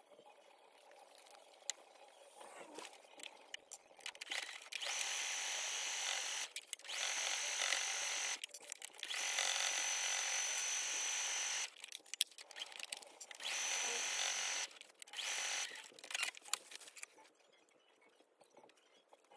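Brother electric sewing machine stitching in five short runs, starting and stopping, each a second or two long with a steady high whine. Quieter fabric handling before and after.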